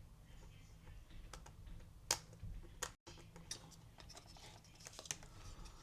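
Light, irregular clicks and scrapes of a small tool prying at a stuck speaker cable connector inside a MacBook Pro, with one sharper click about two seconds in.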